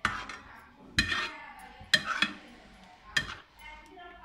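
A spoon knocking and scraping against a stainless steel mixing bowl while masala marinade is worked over fried chicken pieces. There are about five sharp, ringing clinks, roughly one a second.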